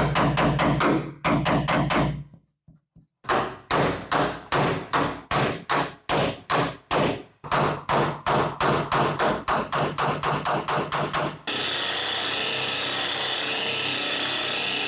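Rapid, steady hammer blows on car body sheet metal, about four a second, pausing briefly about two seconds in; typical of hammer-and-dolly panel work. Near the end the hammering stops and a steady power-tool noise takes over.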